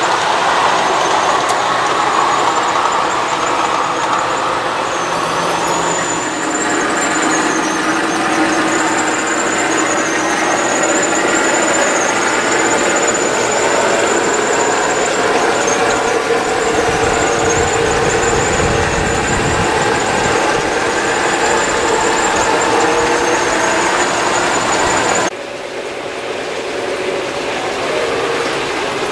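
G scale model freight trains running on elevated track: a steady rolling rumble of wheels and motors, with a high, wavering squeal, typical of wheel flanges on curved track. Near the end the sound drops abruptly to a quieter, more distant rumble.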